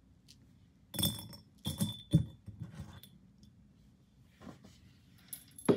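Spiral plastic hair ties dropped into a glass jar, clinking against the glass four or five times in quick succession with a brief ring. A few faint ticks follow, and a louder knock comes right at the end.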